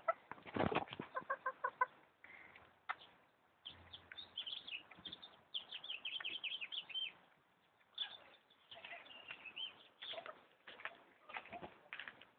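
Hens clucking and calling while they feed, a run of short high calls in the middle, with sharp clicks and flutters near the start.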